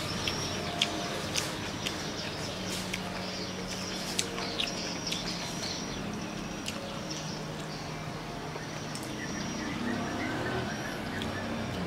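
Eating sounds: a spoon and fork clicking now and then against a stainless steel tray while noodles are picked up and chewed, over a steady low hum, with birds chirping faintly in the background.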